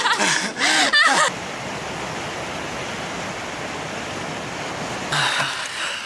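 A woman laughing for about the first second, then the steady rush of waterfall rapids, which swells louder near the end.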